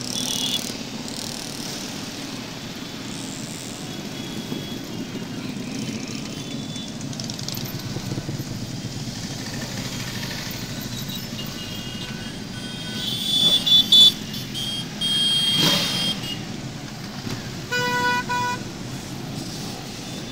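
A parade of motorcycles riding slowly past, a mix of cruisers, sport bikes and scooters, their engines running in a steady low hum. Horns toot several times in the second half, loudest about two-thirds of the way in, with a last short honk near the end.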